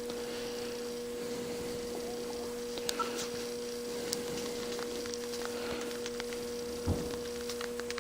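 A steady low hum with a higher overtone, with scattered faint ticks and a soft thump about seven seconds in.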